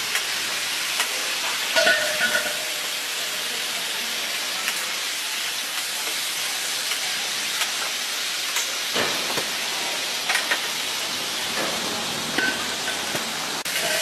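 Polish kielbasa sausages frying on a large round steel pan, a steady sizzling hiss with occasional short clicks of metal tongs against the pan.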